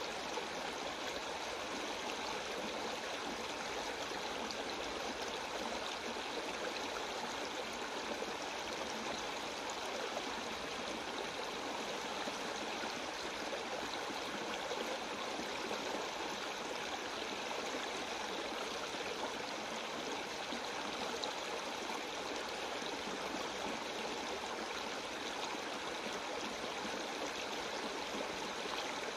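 Creek water rushing steadily over a shallow, layered rock shelf into a pool: an even, unbroken rush with no changes.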